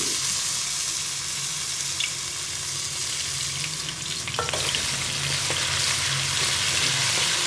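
Ginger-garlic paste sizzling steadily as it fries in hot cooking oil in a steel karahi, stirred with a spoon, with a couple of light clicks against the pan.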